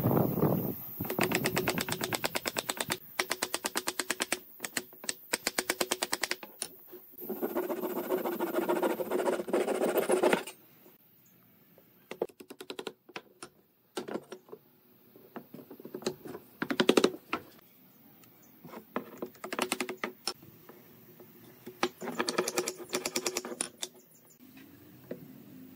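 Wooden mallet knocking on wooden stool parts: fast runs of taps through the first ten seconds or so, then scattered single blows and a short flurry near the end.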